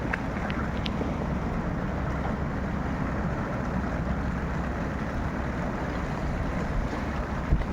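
Steady rumbling wind noise on the microphone over the sea, with a few faint ticks about half a second in.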